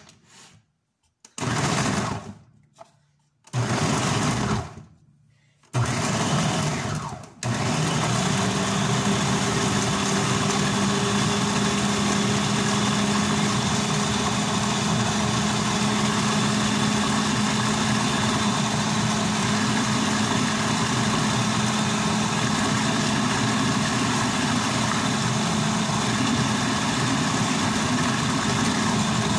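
Moulinex food processor motor pureeing chopped tomatoes. It runs in three short pulses, then steadily and evenly for the rest, with a constant low hum.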